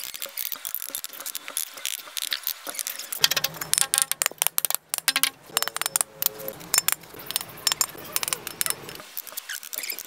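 Steel trowel tapping and scraping on freshly laid clay bricks and mortar: a quick run of sharp clinks and knocks as the bricks are bedded and levelled, busiest in the middle, with a faint low hum underneath for much of it.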